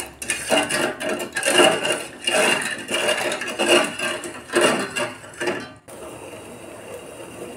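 Steel spoon scraping and knocking against a steel saucepan as sugar syrup is stirred, in irregular strokes. About six seconds in the stirring stops suddenly, leaving a steady, softer hiss of the syrup boiling.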